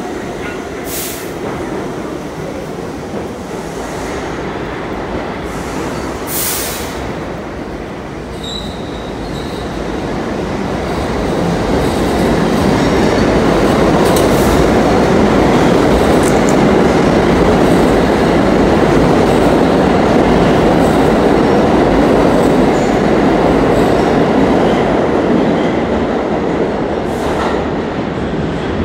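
New York City subway train pulling out of the station and running past close by. Its rumble and wheel noise swell to full loudness about twelve seconds in and ease off near the end as it goes into the tunnel.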